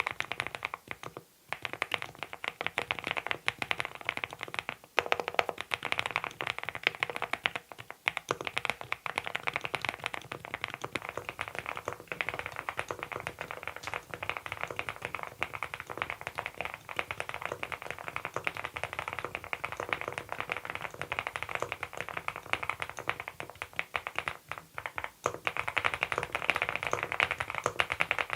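Fast, continuous typing on a Monstargear Ninja87 Pro ALU aluminium-cased mechanical keyboard fitted with Adelie switches: a dense run of key clicks with brief pauses about a second in and again near 25 seconds.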